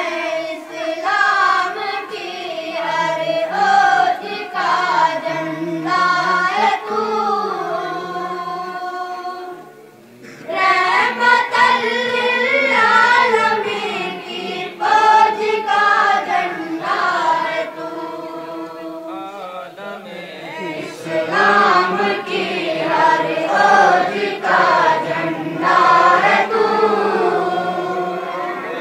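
A group of men singing a religious song together in long sung phrases, breaking off briefly about ten seconds in before starting the next phrase.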